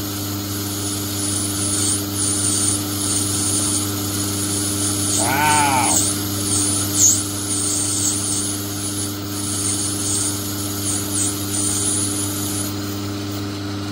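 Myford lathe running steadily with a motor hum while it turns a brass bar. Thin high-pitched whistles waver above the hum for most of the time. About five seconds in comes one short tone that rises and falls.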